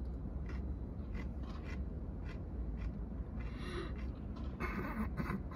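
A bite of pickle being crunched and chewed: scattered crisp crunches and small clicks, a little louder and denser in the second half, over a steady low hum.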